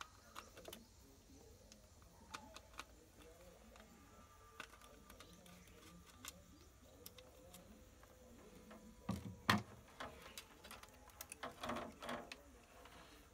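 Scattered small clicks and taps of tools and electronic parts being handled on a workbench, with two louder knocks about nine seconds in and a short burst of clatter near the end.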